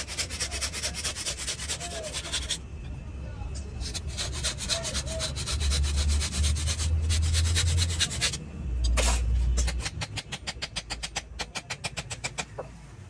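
Hacksaw cutting through a wooden knife-handle scale in quick back-and-forth strokes, in three runs broken by short pauses about two and a half and eight and a half seconds in.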